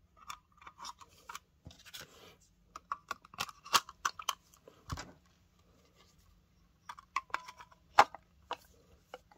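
Hands reassembling a Boss OD-1 overdrive pedal: an irregular series of sharp clicks, taps and light scrapes as the circuit board and metal housing parts are handled and fitted together. The loudest click comes about eight seconds in.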